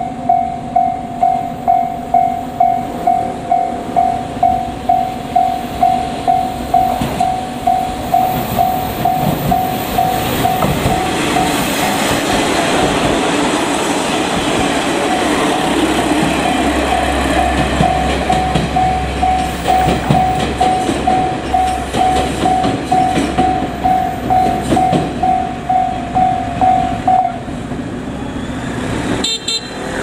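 A Japanese level-crossing alarm bell rings steadily, about twice a second. Over it, the Hayato no Kaze limited express, a diesel railcar train, rumbles across the crossing with wheel and engine noise. The bell stops a few seconds before the end.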